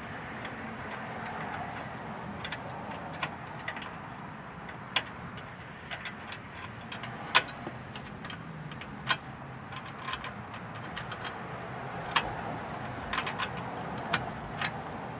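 Scattered sharp metallic clicks and clinks of mounting hardware being worked by hand on a truck's steel frame rail until the fastener catches, over a steady low background noise. The sharpest click comes about halfway through, and a quick run of clicks comes near the end.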